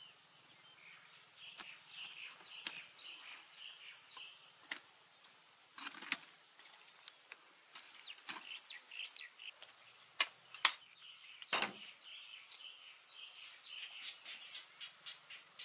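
Outdoor rural ambience: insects trilling steadily with high, even tones and birds chirping here and there. A few sharp knocks or clicks are scattered through it, the loudest about ten to eleven seconds in.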